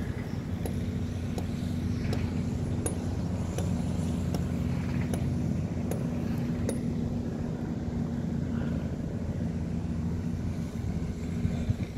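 An engine running steadily at an even speed, a low hum with faint clicks over it.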